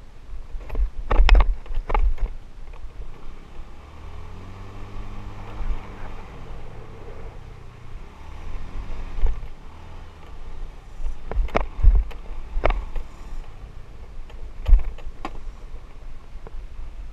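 Motorbike engine running along a rough dirt track, its note rising and falling through the middle. Sharp knocks and jolts from the bumpy surface come in a cluster about a second in and several more near the end.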